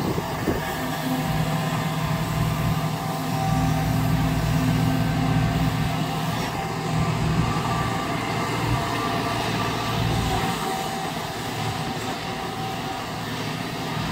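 Kobelco hydraulic excavator's diesel engine running steadily under load as the machine digs sand and swings its loaded bucket, with a brief knock about half a second in.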